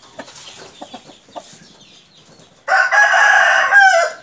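A rooster crows once, about two and a half seconds in. The crow is loud, lasts about a second and a half, and drops in pitch at the end. Before it there are only faint light taps and scuffs.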